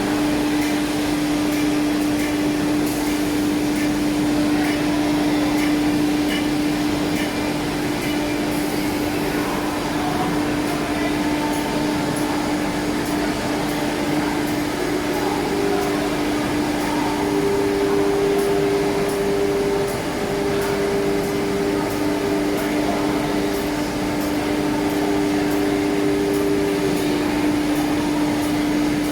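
Automatic four-head CNC woodworking machine running, a steady whine over constant machine noise. A second, higher whine joins about halfway through and stops a couple of seconds before the end.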